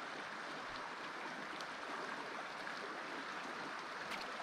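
Small mountain stream flowing steadily, a soft even rush of water, with a faint click or two.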